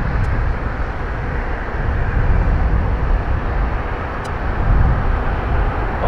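Steady low rumble of jet airliner engines, with no clear rise or fall in pitch.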